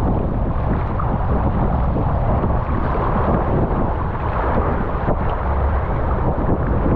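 Steady rushing water with a heavy low rumble, without a break.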